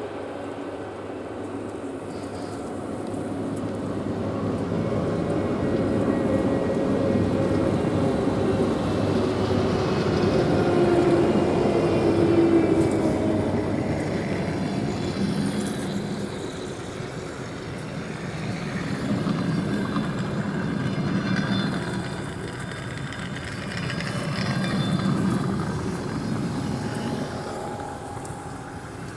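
Passenger train coaches rolling past as the train pulls out of the station, their wheels rumbling on the rails. The noise swells and fades in waves as each coach goes by.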